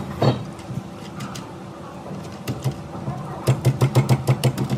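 A fast, even run of sharp knocks, about six a second, starting about three and a half seconds in, over a steady hum. There is a single knock just after the start.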